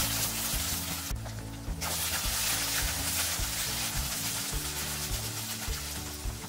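Ground beef sizzling in a nonstick wok as it is stirred with a silicone spatula. The sizzle drops out briefly about a second in.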